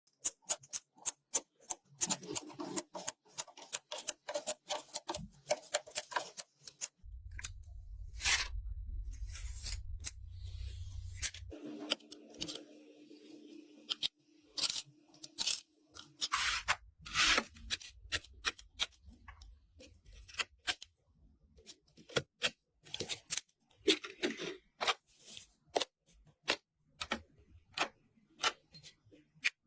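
Gaming PC parts being handled and fitted together: a dense run of sharp clicks, snaps and taps with scraping and rustling, and a low hum for a few seconds about seven seconds in.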